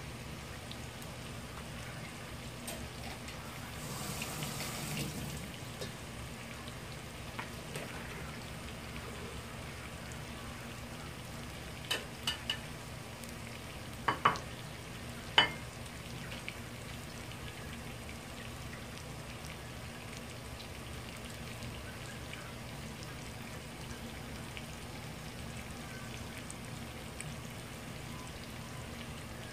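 Salmon steak sizzling steadily in a pan over medium heat, over a low steady hum. A handful of sharp clicks, some with a short ring, come about halfway through and are the loudest sounds.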